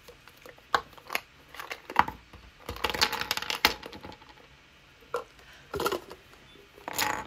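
Plastic clicks and knocks from a crayon-shaped toy container being opened and its contents handled, with a stretch of rattling about three seconds in.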